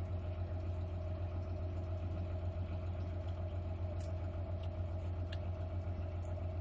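Grain-cart tractor engine running steadily: a low, even drone with a steady higher hum over it. A few light clicks come about four and five seconds in.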